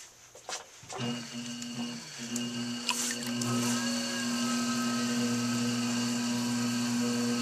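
Electric potter's wheel motor starting up about a second in, then running with a steady hum as the wheel head spins under a ball of clay being centered.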